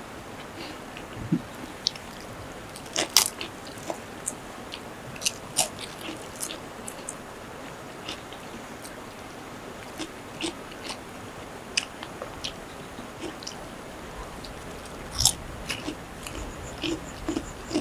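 Close-up eating sounds: crisp fried food being bitten and chewed, with sharp irregular crunches, the loudest about 3 seconds in and again near 15 seconds.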